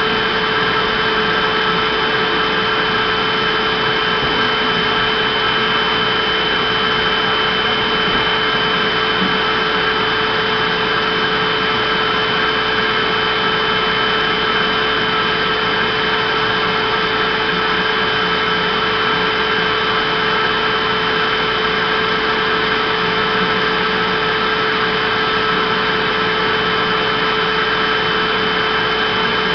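Vacuum cleaner running steadily: an even, loud whooshing noise with a steady mid hum and a high whine on top, unchanging throughout.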